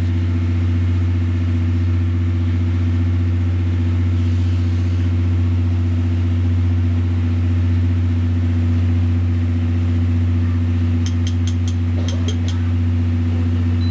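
Diesel engine running steadily, a deep constant hum with a few higher tones above it. A quick run of sharp clicks near the end.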